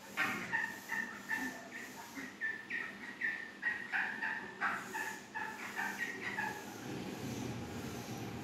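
Chicken calling in a quick run of short, high peeping calls, about three a second, which stop about six and a half seconds in; a low rustle follows near the end.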